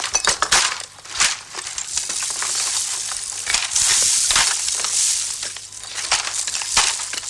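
Irregular crackling and rustling made of many quick clicks, with a steadier hiss around the middle.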